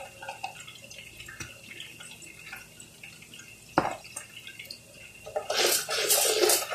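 Water running and splashing from a kitchen tap, starting about five and a half seconds in. Before that there are a few light clicks and one sharp knock.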